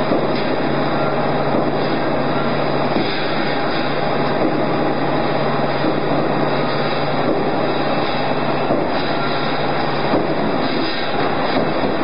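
Cable tray roll forming machine running: a steady, loud mechanical din of its forming rollers and the steel strip travelling through them. A low hum underneath drops away about ten seconds in.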